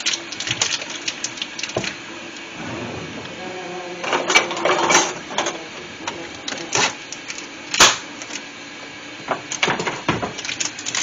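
Kitchen handling noise: scattered sharp clicks, knocks and clatters of things being handled on the counter and stove, with a few louder clacks about four, seven and eight seconds in and a quick cluster near the end.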